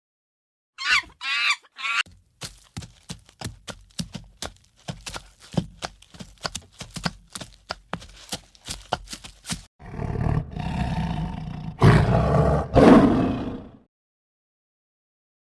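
Animal sounds: three short wavering cries about a second in, then a long run of quick clicks and knocks, then a loud, rough roaring call lasting about four seconds.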